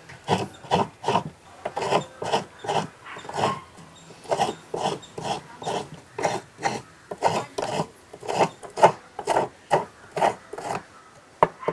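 Coconut half being grated on the serrated round blade of a traditional coconut scraper: quick rasping scrapes of shell-held flesh against metal teeth, a little over two strokes a second, with two short pauses.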